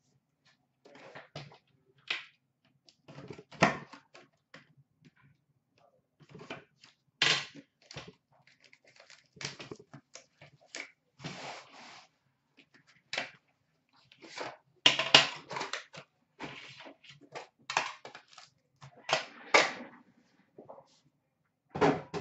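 A sealed Upper Deck Premier hockey card box being handled and opened: irregular bursts of crinkling and rustling packaging, with sharp knocks and clicks as the box and its pack are set down on a glass counter.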